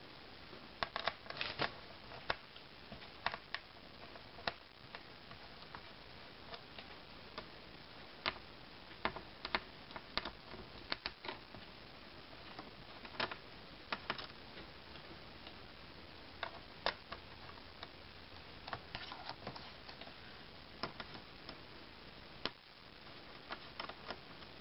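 Small screwdriver loosening the screws that hold a Dell Inspiron 1525 laptop keyboard: scattered light clicks and ticks as the tool turns in the screw heads and touches the plastic, irregular and spread through the whole stretch.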